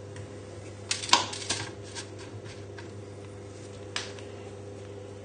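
Light knocks and taps from hands and pastry-wrapped pear halves on a metal baking tray: a quick cluster about a second in, a few softer ones after, and one sharp tap about four seconds in, over a faint steady hum.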